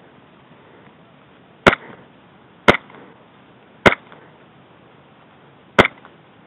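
Airsoft gun fired four single shots, each a sharp pop: three about a second apart, then a fourth after a pause of about two seconds.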